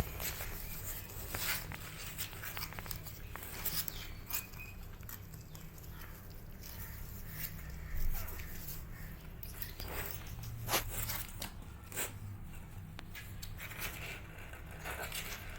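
Kittens moving about: scattered light taps, scuffs and rustles, with sharper knocks about eight and eleven seconds in, and no clear meowing.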